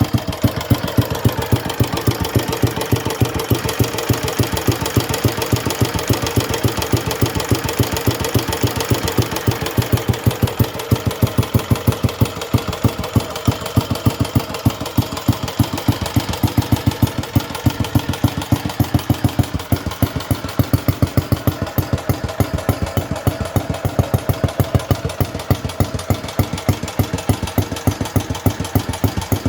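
1938 Moto Guzzi PE250's horizontal single-cylinder four-stroke engine ticking over nicely at a steady idle, with even, regular firing beats.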